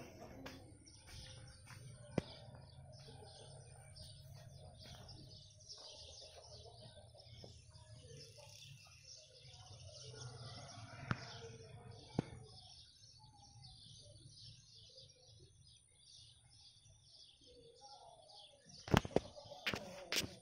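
Many small birds chirping in a busy, continuous chorus over a low steady rumble. A few sharp knocks come near the end.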